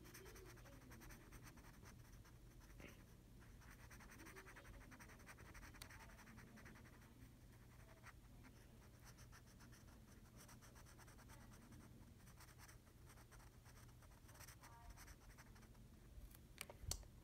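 Faint scratching of a felt-tip marker's tip rubbing back and forth on paper as it colours in.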